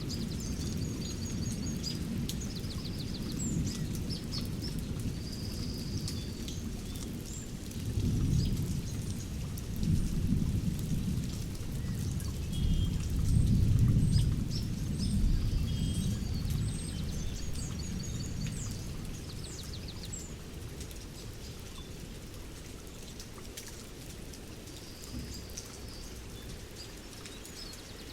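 Distant thunder rumbling in slow swells, loudest about halfway through and dying away toward the end, while small birds chirp and trill.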